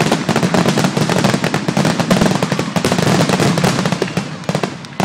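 Aerial fireworks going off in a rapid, continuous barrage of bangs and crackles, thinning out near the end.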